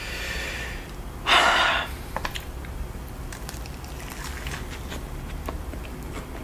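A sharp breath, then a big bite into a sauce-covered Shack Stack burger (beef patty and fried mushroom patty) and chewing with the mouth. The chewing makes many small, irregular wet clicks and crunches.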